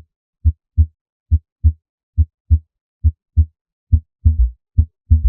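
Heart sounds as heard through a stethoscope: a regular lub-dub (S1 then S2) at about seventy beats a minute. From about four seconds in, a third low sound follows close after each dub, an S3 gallop. Such extra sounds are a sign that the load on the heart has increased and the heart muscle has enlarged.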